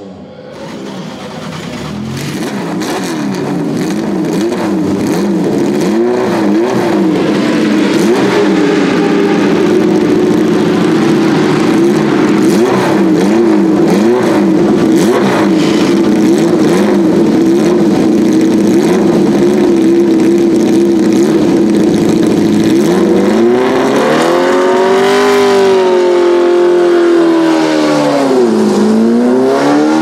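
Ford Cosworth DFL 90° V8 of a Tiga GC289 Group C race car running at a high, slightly unsteady idle with small blips. Near the end the revs swing up, drop back and climb again.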